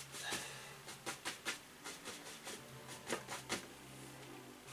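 A two-inch bristle brush loaded with paint scrubbing on stretched canvas in a run of short, scratchy strokes, laying down the dog's hair.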